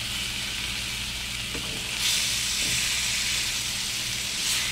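Spice-crusted catfish fillets frying in hot olive oil in a nonstick skillet, a steady sizzle that grows louder about two seconds in as the fillets are turned with a spatula. A light tap near the end.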